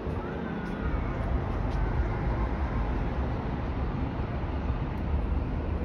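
Steady city traffic noise with a deep low rumble underneath.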